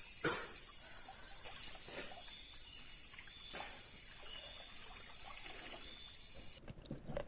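Night insect chorus of crickets, a steady high-pitched multi-toned trilling, with a few faint knocks. The chorus cuts off abruptly near the end.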